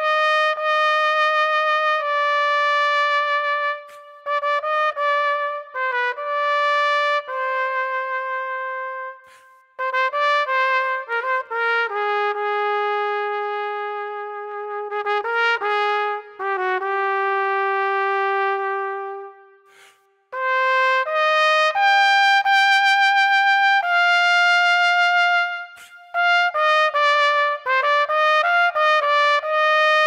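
Unaccompanied solo trumpet playing a slow melody of long held notes, some with vibrato, linked by quicker runs and broken by a few short breaths.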